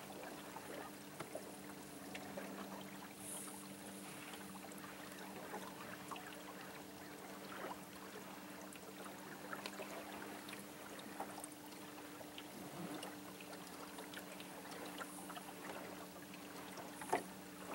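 A small boat's motor humming steadily at low speed, with faint water splashing against the hull.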